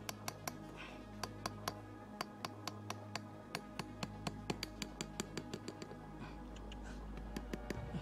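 Quick, sharp metal taps of a hatchet's back striking a bent wire stake, driving it into the dirt, about three or four strikes a second, stopping shortly before the end.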